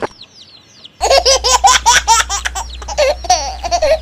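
High-pitched giggling laughter in quick bouncing bursts, starting loudly about a second in, after a second of faint short chirps.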